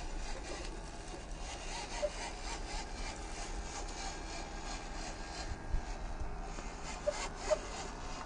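A 1/14-scale RC Jeep's 260 brushed electric motor and drivetrain whining steadily under load as it crawls up a rock slab, with a rasping scrape of tyres on rock and a few short sharp clicks.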